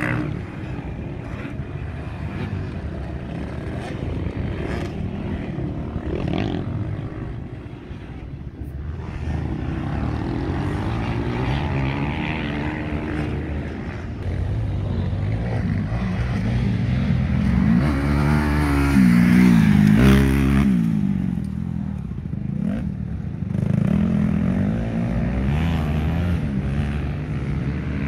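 Motocross dirt bike engines revving up and down as the bikes race around a dirt track. The engine pitch keeps swinging with the throttle, and the sound is loudest about two-thirds of the way through, where it sweeps up and then down.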